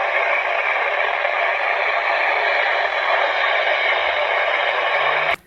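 Steady static hiss from a NOAA weather radio receiver with no station coming through. It cuts off suddenly near the end.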